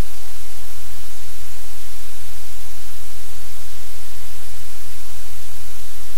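Loud, steady static hiss with a strong low hum, unchanging throughout: line noise on the audio feed rather than any sound from the room.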